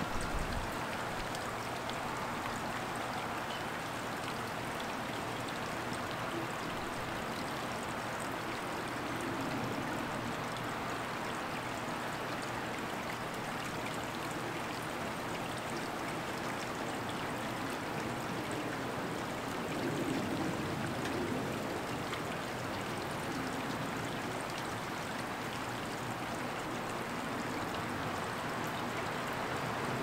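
Steady rainfall, an even hiss of many drops, swelling a little about twenty seconds in.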